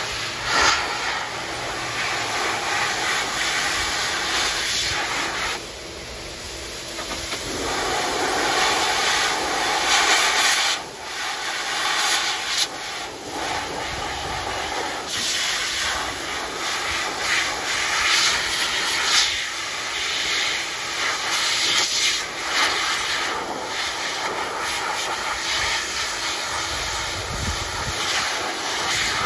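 High-velocity dog grooming dryer blowing through its hose and nozzle onto a puppy's wet coat: a loud, steady rush of air that wavers in level, dipping briefly about six seconds in.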